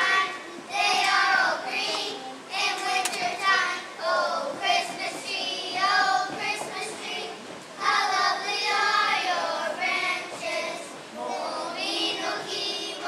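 A group of young children singing together as a choir, in phrases with short breaks between them.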